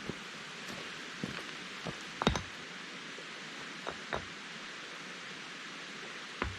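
Steady rush of a mountain stream, with a few scattered short knocks and taps over it; the loudest is a double knock about two seconds in.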